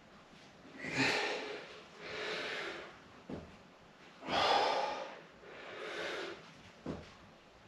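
A man breathing hard through a set of TRX tricep extensions, with a loud exhale about a second in and another about four and a half seconds in, and quieter breaths between them.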